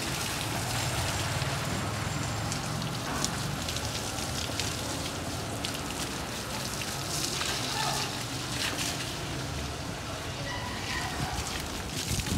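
Water spraying from the open end of a garden hose and splashing steadily onto soil and plants.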